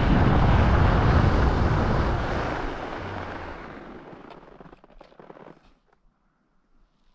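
Wind buffeting the action camera's microphone and skis sliding over groomed snow while skiing fast, fading away over a few seconds as the skier slows to a stop. A few faint scrapes near the end, then near silence.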